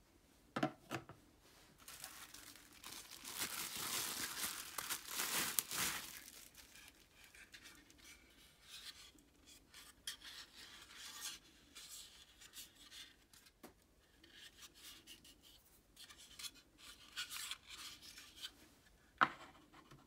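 Rustling and crinkling of plastic packaging for a few seconds, then light rubbing and scraping of hard plastic parts being handled. A couple of sharp knocks come near the end as pieces are set down on the table.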